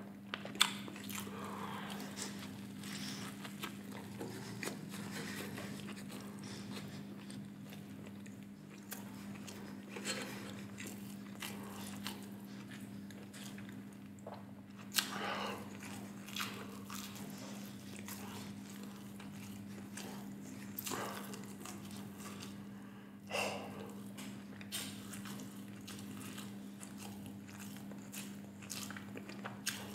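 Close-miked biting and chewing of a burger crusted with crushed Flamin' Hot Cheetos, with a few sharp crunches standing out, over a steady low hum.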